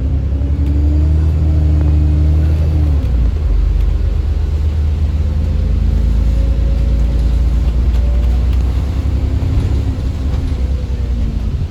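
Alexander Dennis Enviro 400 MMC bus engine pulling under load through its Voith automatic gearbox. The engine note rises, drops suddenly about three seconds in as the gearbox changes up, then climbs slowly again and drops near the end at the next change.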